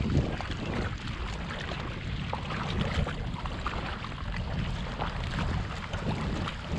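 Wind buffeting the microphone as a low rumble, with small waves lapping and splashing against a rocky shoreline in irregular little ticks.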